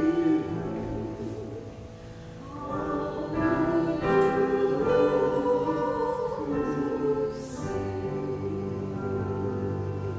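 Small mixed choir of four voices singing a hymn with piano accompaniment. The voices drop away briefly about two seconds in, then come back in on the next phrase.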